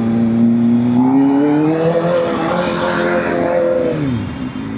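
Kawasaki ZX-4RR's inline-four engine through a Scorpion slip-on exhaust, pitch climbing under throttle and holding high, then dropping steeply near the end as the throttle closes.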